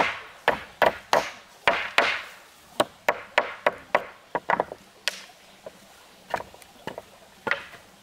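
A hand tool chopping into wood in sharp, irregular blows, quick and close together for the first five seconds, then fewer and further apart.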